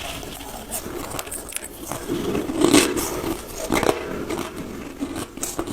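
Close-up chewing and crunching of white crushed ice, with irregular crackles and crunches as the pieces break between the teeth.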